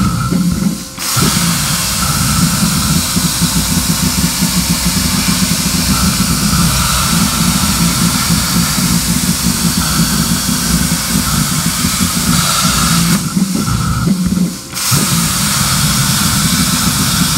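PlasmaCam CNC plasma cutter torch cutting sheet metal: a loud, steady hissing rush of the plasma arc and air over a low hum. The arc is off at the start and restarts about a second in. It cuts out again for a second or two near the end, then restarts for the next cut.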